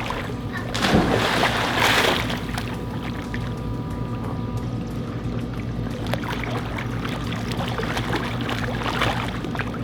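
Pool water splashing as a person in a straitjacket goes face down into it, loudest about a second in, then quieter splashing over a steady low hum.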